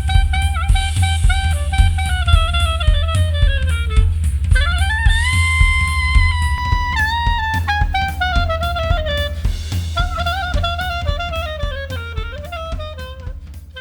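Electro-swing instrumental music: a lead melody with bending, gliding notes over a steady drum beat and heavy bass. It fades out near the end.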